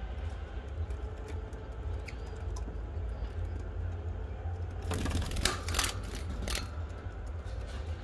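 A steady low rumble, with a quick run of sharp clicks and scratches about five to six and a half seconds in.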